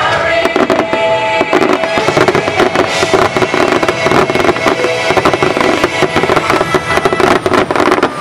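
Rapid volley of fireworks bursts and crackling shells, many sharp bangs a second in close succession, with the show's music sounding under them.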